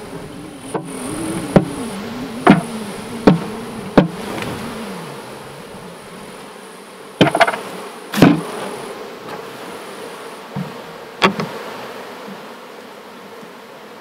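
Honey bees buzzing steadily around an open hive. About eight sharp knocks at irregular spacing, the loudest about eight seconds in, as a hive box is tapped against the hive to jar the clinging bees down into it.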